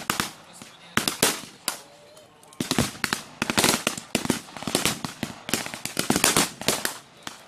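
Blank gunfire from a WWII battle reenactment: irregular sharp shots, some in quick strings, with a short lull about two seconds in.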